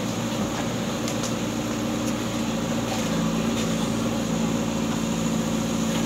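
JCB 3DX Super backhoe loader's diesel engine running steadily as the machine works, an even hum that barely changes.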